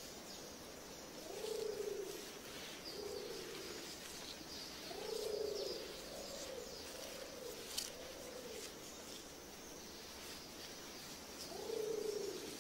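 A pigeon cooing: low, rounded notes about half a second long, repeated every second or two, with a run of three close together midway. Faint high chirps of small birds sound behind it.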